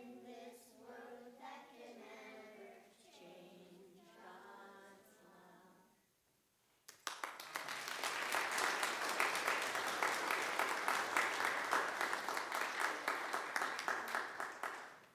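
A small group of children singing together, their song ending about six seconds in. After a short pause, a congregation applauds for about eight seconds, the loudest part, fading out at the end.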